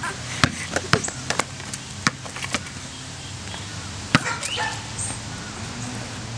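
A small rubber basketball bouncing on a concrete driveway: a run of sharp, unevenly spaced thuds as it is dribbled, over a faint steady low hum.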